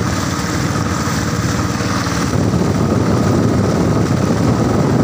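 Motorboat engine running steadily.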